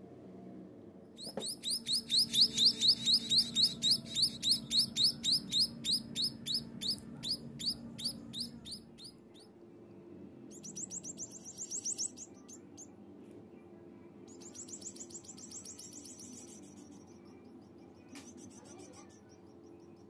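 Society finch nestlings cheeping to beg: a fast run of high, rising cheeps, about four a second, that fades over several seconds. Shorter bursts of cheeping follow.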